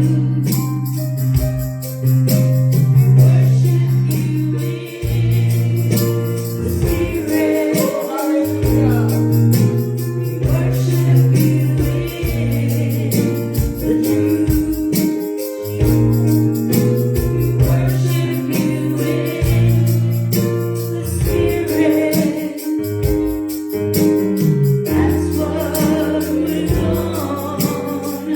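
Live congregational gospel worship singing with a band: held bass notes and chords under the singers, and a steady tambourine-like shake keeping the beat.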